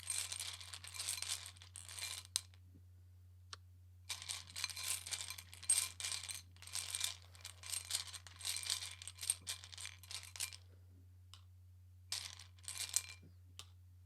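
Divination pieces shuffled and rattled by hand: three stretches of dense clicking and rattling, the middle one longest, with short pauses between.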